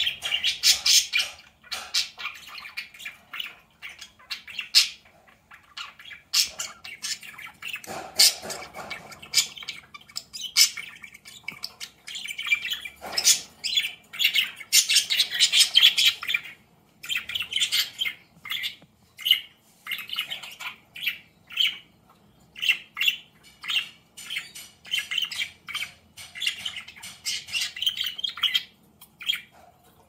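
Budgerigars chirping and chattering in quick, irregular bursts, with many short clicks among the calls.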